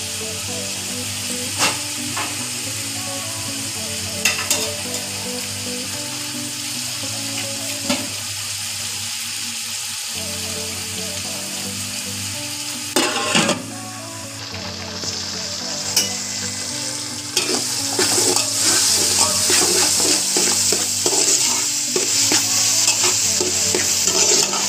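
Sliced onions sizzling in hot oil in a stainless-steel pot as they fry toward golden brown, with a few sharp clinks of a spatula against the pot. The sizzling gets louder about two-thirds of the way through, when the onions are stirred.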